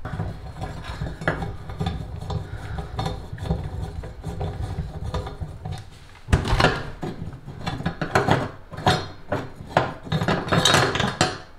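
A ratcheting screwdriver backs out the single screw of a chrome bathtub overflow cover, with a fast, even clicking for about six seconds. Then come a series of sharper metallic clinks and knocks as the loosened screw and cover are handled.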